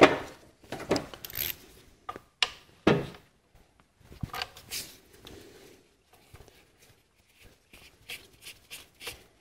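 Scattered light clicks and knocks of a socket and ratchet being handled and fitted at an engine's ignition coil, with short rubbing sounds; the clicks are louder in the first few seconds and fainter later.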